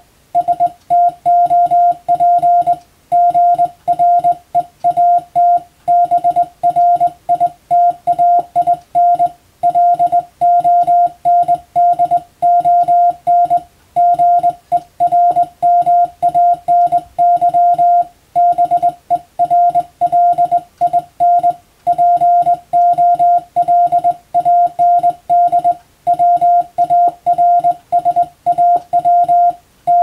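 Morse code hand-sent on a telegraph key, heard as a single mid-pitched beep keyed on and off in dots and dashes. It spells out practice telegram text of country capitals, such as "London, Germany Berlin, Poland Warsaw, Netherlands Amsterdam".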